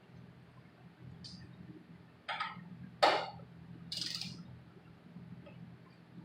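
A few separate knocks and clinks of small engine parts and tools being handled, the loudest about three seconds in, over a low steady hum.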